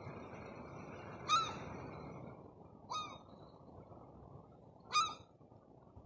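Herring gulls giving three short calls, each a quick rise-and-fall note, about a second and a half apart, over a steady low background hiss.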